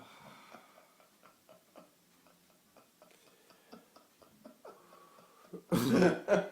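Quiet with faint scattered clicks, then near the end a sudden loud burst of a man's laughter.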